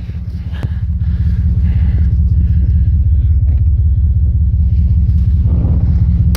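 Vehicle engine running with a steady low rumble, growing louder over the first second and then holding.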